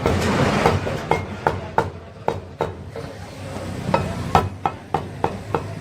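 Butcher's knife knocking against a wooden chopping block, about a dozen quick, uneven strikes while cutting chicken, with a pause in the middle.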